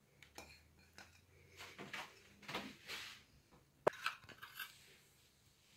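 Soft scattered rustling and light taps of grated cheese being sprinkled by hand from a bowl onto a pizza on a paper-lined baking tray. A bowl clinks once, sharply, about four seconds in.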